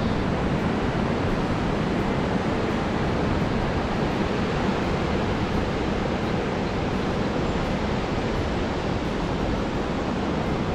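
Ocean surf washing over a rocky cobble shore, a steady, even rush of noise with no single wave standing out.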